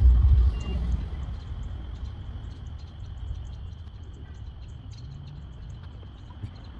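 Thunder rumbling, loudest just at the start and fading away over the next few seconds, with a steady high-pitched chorus of night insects or frogs behind it.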